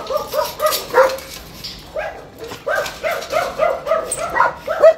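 Dogs at a kennel fence giving short, high-pitched barks and yelps in quick succession, about three a second. The loudest comes just before the end.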